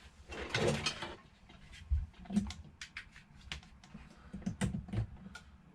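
Irregular light clicks and taps from handling a phone and small parts on a repair bench.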